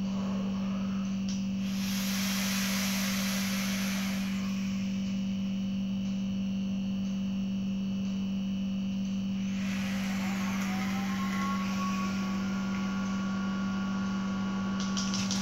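A steady low hum throughout, with a breathy rush for about two seconds early on. From about ten seconds a whistling tone rises and then holds: air being drawn through a Twisted Messes dripping atomizer with dual Clapton coils fired at 70 watts. It ends with a few crackles.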